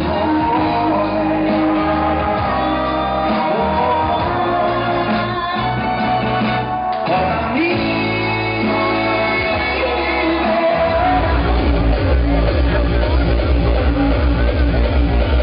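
Live music with singing and guitar. About eleven seconds in it changes to a denser band sound over a steady pulsing bass.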